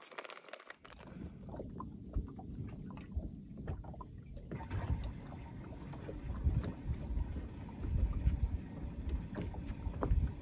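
Uneven low rumble of wind and small waves slapping against a bass boat's hull, in irregular surges, with scattered light clicks.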